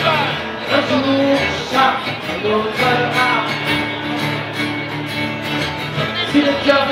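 Acoustic guitar strummed with a man singing over it: a live solo song.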